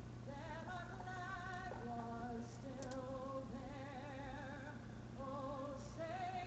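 Quiet background music with a singing voice holding wavering notes, over a steady low hum.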